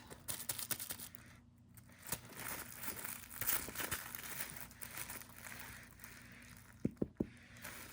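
A crinkly cat toy rustling and crackling in irregular spurts as a cat bats and pounces on it, with a few sharp taps near the end.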